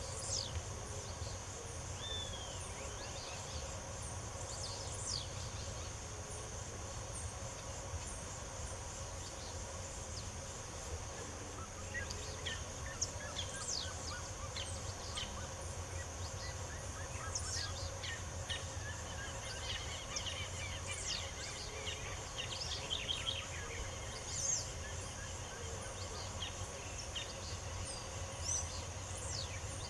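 Several wild birds singing and calling with short chirps and quick sweeping notes, busier in the second half, over a steady high insect trill and a low background hum.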